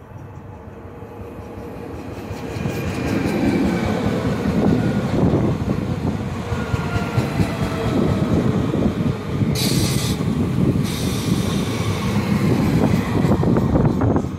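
Alstom Régiolis regional electric-diesel multiple unit passing close by on the platform track. Its rumble builds over the first few seconds, then runs loud and steady with a faint falling whine, and a brief burst of hiss comes about ten seconds in.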